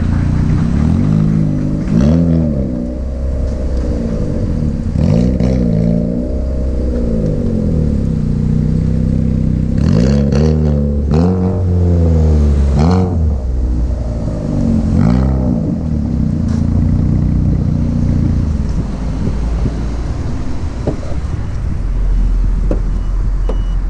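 Car engine being revved in a series of blips, its pitch climbing and falling back about six times, running steadily between them and for the last few seconds.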